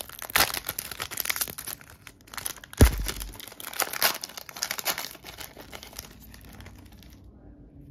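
The foil wrapper of a Japanese Pokémon VSTAR Universe booster pack crinkling and tearing as it is opened by hand, with one sharp knock about three seconds in. The rustling dies down over the last second or two.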